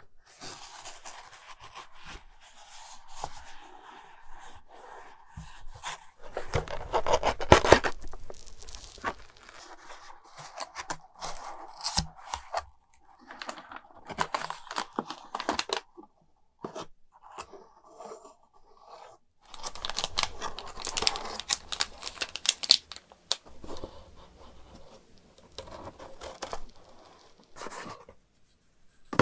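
A cardboard toy box being opened and unpacked by gloved hands: card flaps scraping, tearing and rustling, and parts sliding out of the cardboard insert, with scattered clicks. The handling is loudest about seven seconds in and again around twenty seconds in.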